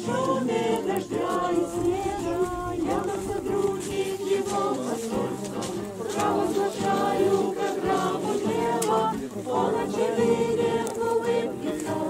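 Several voices singing a slow song together, a choir-like sound of long held notes.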